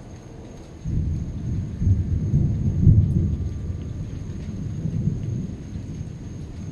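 Thunder: a rumble breaks in suddenly about a second in, swells to its loudest a second or two later, then rolls on and slowly fades.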